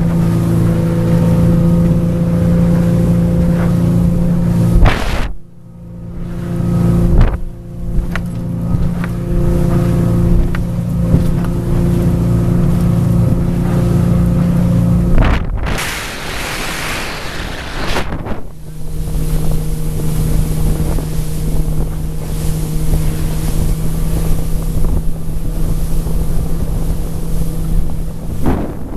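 Motorboat engine running steadily at cruising speed, a loud even drone, with wind on the microphone and water rushing past the hull. The sound breaks off abruptly a few times, and for a few seconds in the middle only the rush of wind and water is heard before the engine drone comes back.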